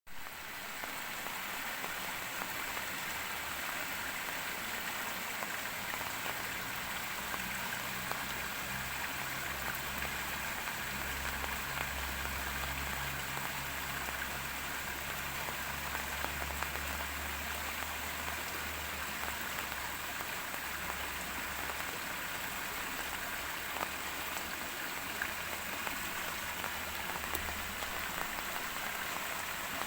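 Steady rainfall, an even hiss of drops on surfaces, fading in over the first second. A faint low hum sits underneath through much of the middle.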